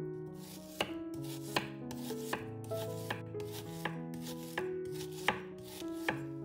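Knife cutting on a cutting board in slow, even strokes, about one sharp chop every three quarters of a second, over soft background music of held notes.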